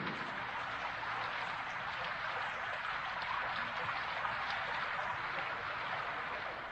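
Recorded rain, a steady even hiss of falling rain with no instrument heard: the rain sound effect of the soundtrack.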